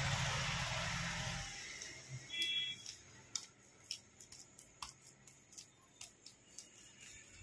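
Hands smearing soft vegetable shortening over a sheet of rolled puff-pastry dough on a marble slab, giving many small sticky clicks and pats. A louder rushing noise with a low hum fills the first second and a half, and a short high beep sounds about two and a half seconds in.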